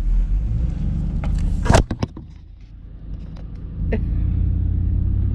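Truck running with a steady low rumble, broken about a second and a half in by one sharp bang; the rumble then drops for about two seconds before coming back up.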